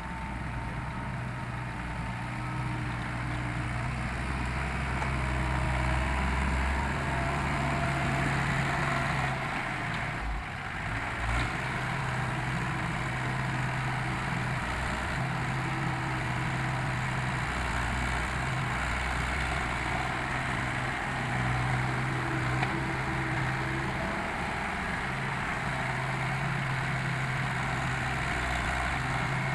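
Small excavator's diesel engine running steadily at working revs. Its low hum swells and eases every few seconds as the hydraulics take and release load during digging and loading.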